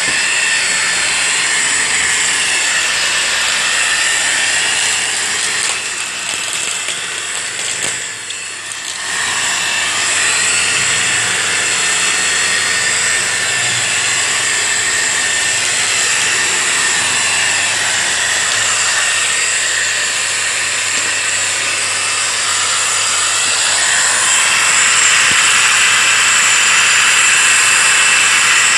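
SEBO 470 Electronic upright vacuum cleaner running with a steady high whine. The sound dips for a couple of seconds about a third of the way in and grows a little louder and brighter near the end.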